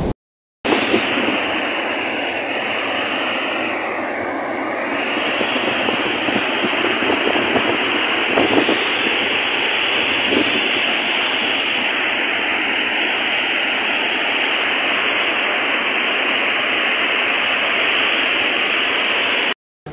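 Floodwater rushing in a swollen river, a steady, dense rushing noise with no break.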